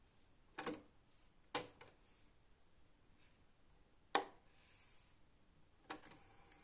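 Technics RS-M205 cassette deck's controls and tape mechanism being operated: four sharp mechanical clicks, spread a second or two apart.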